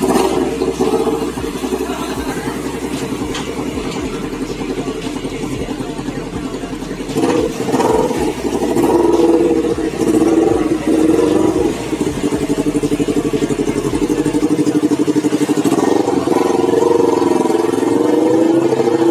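Kawasaki Ninja 250 parallel-twin running through an aftermarket racing exhaust, idling and being blipped, then pulling away with the revs rising near the end.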